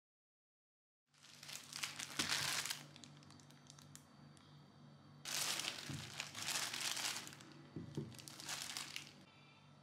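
Clear plastic bag crinkling in three bursts as sweet potatoes are handled in it, starting about a second in; the first two bursts are the loudest.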